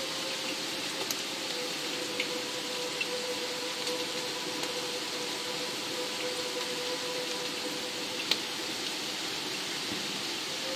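Steady rain hiss with a few single drops landing sharply, the loudest about eight seconds in, over a steady held tone.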